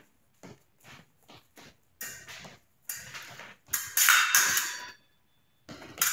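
Épée blades clashing and scraping together amid quick footwork stamps on the fencing strip. The loudest clash, with a brief metallic ring, comes about four seconds in.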